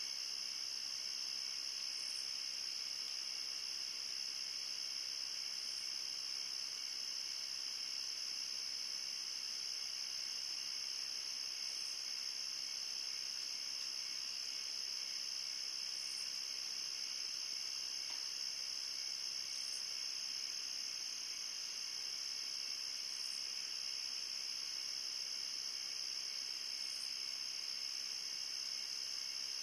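Steady chorus of crickets and other night insects: a continuous high trill, with a fainter, higher chirp repeating every three to four seconds.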